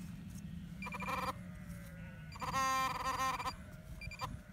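A sheep bleating twice: a short call about a second in, then a longer call with a wavering, broken pitch from about two and a half seconds in.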